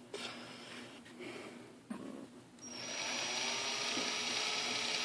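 Small electric drill starting up about two and a half seconds in and then running steadily with a high whine, boring through a thumbnail to let out blood trapped beneath it.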